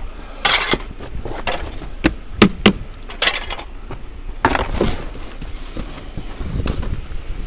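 Steel garden ornament of metal rods knocking and rattling against other scrap as it is loaded onto a truck bed: a run of sharp metallic knocks, three in quick succession about two seconds in, and a longer clatter near five seconds.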